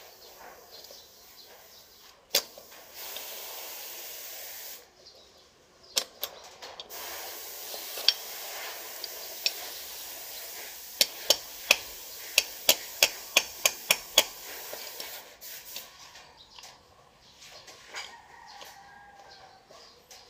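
Sharp metal clicks of pliers working a retaining clip on a drum-brake shoe, a few at first and then a quick run of about three a second, over a steady hiss. Near the end a rooster crows in the background.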